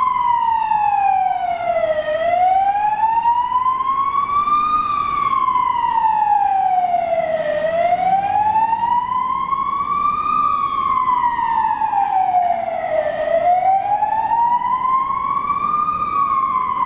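Federal Signal Vama AS-320 siren on a 2004 MAN LE 18.280 fire engine sounding a slow wail, the pitch rising and falling about every five and a half seconds, about three full cycles.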